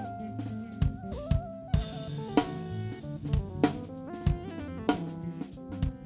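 Live band playing: a drum kit with bass drum, snare and cymbals keeping a steady beat under a bass line, with a held melody line stepping up and down on top.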